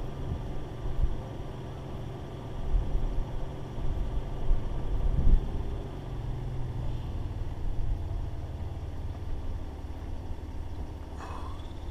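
Mitsubishi Pajero Evolution's V6 engine running at a standstill, a steady low rumble that swells briefly a couple of times around the middle before settling back.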